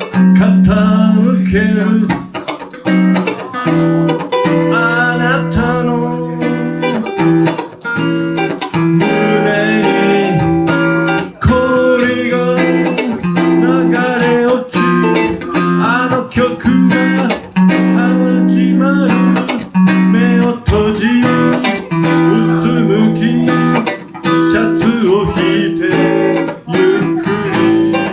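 Electric guitar (a Van Zandt Telecaster through a Roland JC-120 amp) playing an instrumental passage: held low bass notes under a melody of bent and sliding notes.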